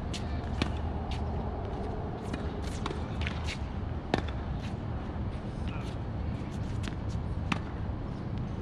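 Tennis balls being hit and bouncing on a court: three sharp pops about three and a half seconds apart, with lighter ticks and shuffling in between, over a steady low rumble.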